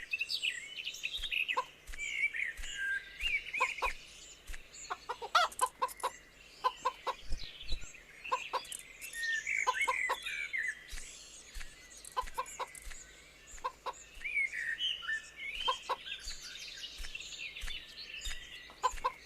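Hens clucking in short bursts of two to four calls, over steady chirping of small songbirds.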